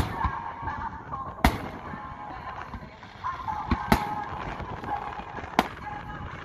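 Aerial fireworks shells bursting: about five sharp bangs at uneven intervals, two of them close together a little before the fourth second. Music plays underneath throughout.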